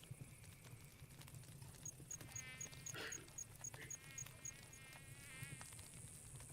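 Faint night-forest soundscape: a campfire crackling with scattered sharp pops, a cricket chirping steadily at about four chirps a second through the middle, and other creatures calling at the same time. A high insect trill grows stronger near the end.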